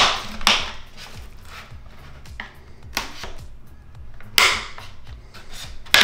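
Metal pry tool working the spine off a UE Megaboom speaker's casing: several sharp snaps as the spine pops loose, the loudest just after four seconds in, with quieter scraping between.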